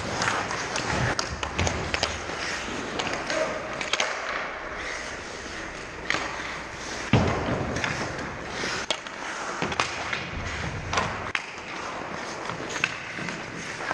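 Ice hockey skates scraping and carving on the ice, with sharp clacks of sticks and puck scattered throughout and echoing in a large rink. One loud impact about seven seconds in.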